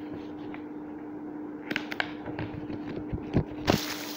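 Pages of a paper book being turned and handled: scattered light paper rustles and taps, with a louder rustle near the end, over a steady low hum.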